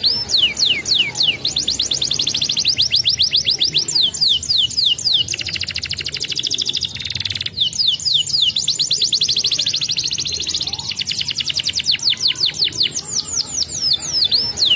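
Domestic canary singing a long unbroken song. Phrases of falling whistled notes, several a second, alternate with very fast rolling trills (the 'roll').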